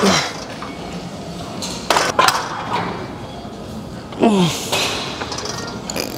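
Weight-stack plates of a seated leg curl machine clinking a couple of times about two seconds in, as hamstring curl reps are pushed through. Short strained grunts falling in pitch come at the start and again about four seconds in.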